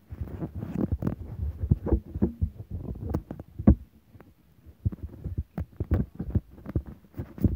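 Handling noise on a hand-held camera's microphone: irregular low thuds and rubbing, several a second, with a short lull about four seconds in.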